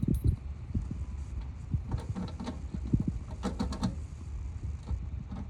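A set of keys being handled: light metallic jingles and clicks in two short clusters, over low handling thumps.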